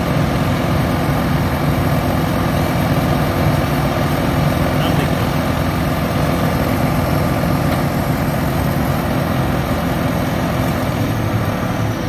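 New Holland TR96 combine running steadily with its threshing rotors turning, clearing out the last of the tough, wet straw that had plugged the right-hand rotor.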